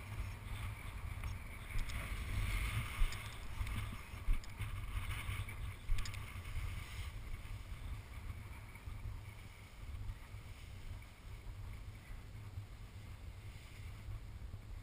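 Wind buffeting the microphone: a low, gusting rumble that rises and falls, with a few light knocks in the first six seconds.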